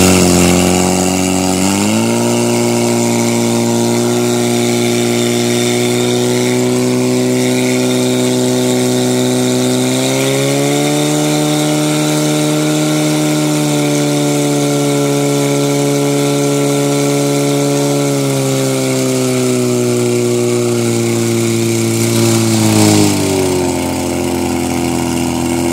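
Portable fire pump engine running hard, driving water through the attack hoses to the jets. Its pitch rises in the first two seconds and climbs again about ten seconds in, then falls back in two steps in the last third.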